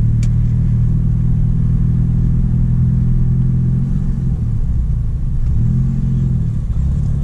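Mitsubishi Lancer Evolution IV's turbocharged 4G63 inline-four running at low revs as the car creeps along, a steady low exhaust drone whose pitch wavers up and down a little from about four seconds in.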